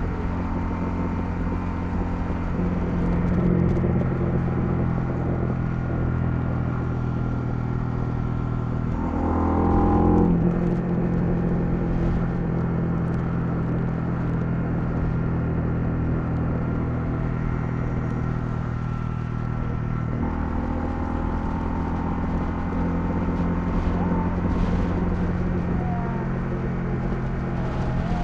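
Honda CL250 motorcycle engine running under way. The pitch rises about a third of the way in, and the engine note shifts again about two-thirds through, as with throttle and gear changes.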